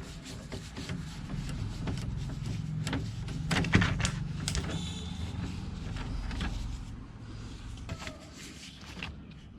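A power driver fitted with a 10 mm socket runs steadily for about six seconds, undoing a bolt from the door handle, with a few light clicks. It tails off near the end.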